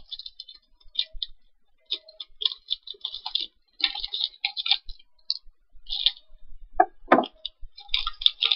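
A foil blind-box wrapper and its packaging being torn open and handled, making irregular bursts of crinkling and crackling. About seven seconds in comes one louder, lower rustle.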